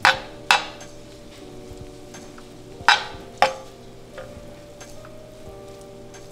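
Metal slotted spoon stirring and scraping cauliflower fried rice in a honeycomb-textured steel frying pan. There are two pairs of sharp clanks of the spoon against the pan, each ringing briefly: one pair right at the start and about half a second in, the other about three seconds in.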